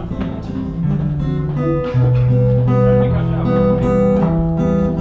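Live band music: strummed acoustic guitar chords over a moving bass line, without vocals.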